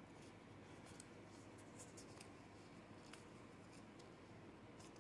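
Near silence, with faint scattered scratches and soft ticks of Pokémon trading cards being slid into plastic card sleeves.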